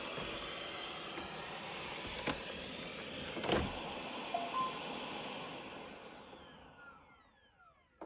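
Narwal Freo robot vacuum-mop running its suction fan as it backs into its base station, with a few clicks and a knock about three and a half seconds in as it docks, and two short tones about a second later. From about six seconds in the fan winds down with a falling whine and fades almost to nothing as the robot shuts off in the dock.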